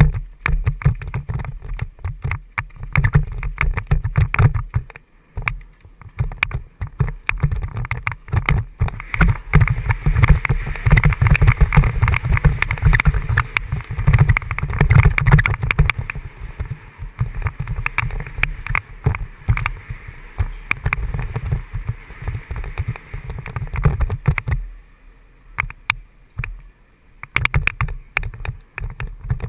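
Mountain bike descending a dirt trail: a constant low rumble of tyres over rough ground, full of clattering knocks and rattles from the bike. It goes quieter for a couple of seconds about 25 seconds in.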